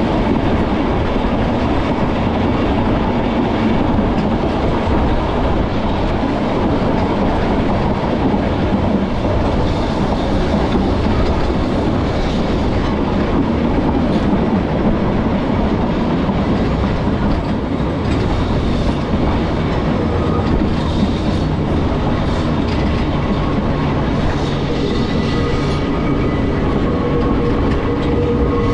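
Manx Electric Railway tramcar running along the line: a steady noise of wheels on rails. About two-thirds of the way through, a faint steady humming tone comes in.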